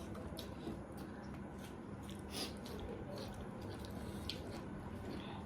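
Close-up eating sounds: wet chewing of food, with scattered short smacks and clicks, over a steady low hum.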